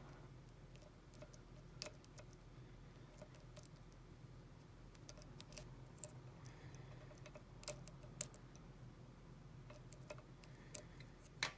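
Faint, scattered metallic clicks and ticks of a hand-held lock pick and tension wrench working the pins of an American 700 padlock, one or two clicks every few seconds over a low steady hum.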